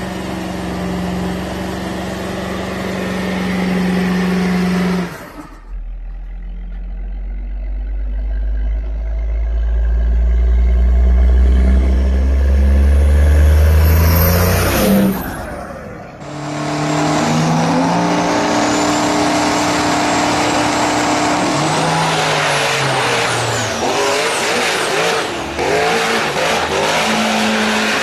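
Diesel pickup engines in three short clips. First a Ford Super Duty's diesel is held at high revs during a burnout for about five seconds. Then an old pickup blowing black smoke comes on louder and louder and passes by about fifteen seconds in, and last a drag-racing pickup's engine accelerates hard, rising in pitch and dropping back several times.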